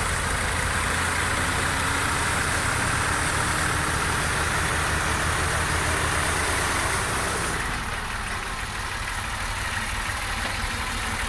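Diesel engines of two Massey Ferguson tractors, an MF 255 and an MF 350, running steadily as the tractors pull against each other on a rigid tow bar. About two-thirds of the way through the hiss fades and the sound eases slightly, but the engines keep running.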